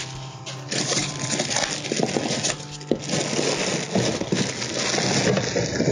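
Plastic wrapping crinkling and rustling against polystyrene packing as metal bandsaw stand legs are handled and pulled from the box, with a few light knocks.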